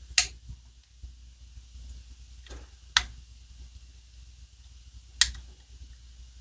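Sharp clicks of small metal knife parts and tools being handled and set down on a hard work surface while a folding knife is disassembled: three loud clicks about a second apart, the first near the start, one near the middle and one near the end, with a softer click just before the middle one.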